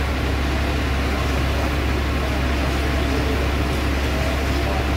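Fire engine's diesel engine idling: a steady, low, constant rumble.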